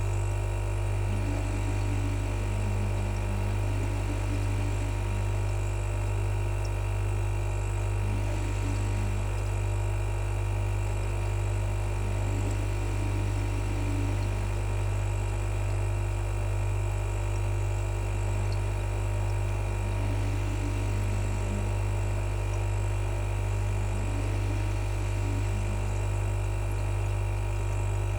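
Electric fan running steadily, with a strong low hum under its whir.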